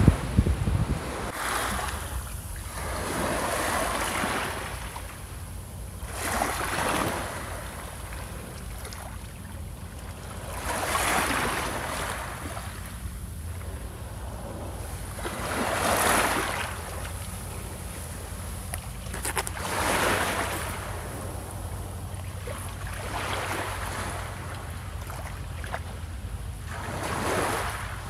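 Small sea waves washing onto a pebble shore, one wash every few seconds, each swelling and falling away, over a steady low rumble. Wind buffets the microphone at the start and drops off within the first second.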